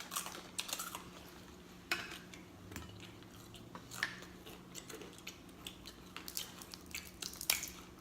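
Close-miked chewing and smacking on fried chicken, with scattered crisp crunches and small clicks over a faint steady hum.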